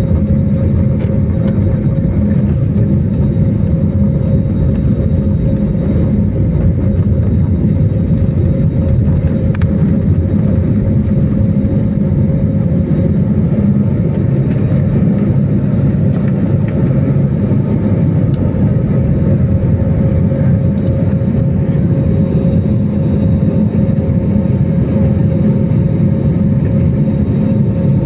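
Steady drone of an airliner heard from inside the cabin: engine and airflow noise heavy in the low end, with a constant hum running through it.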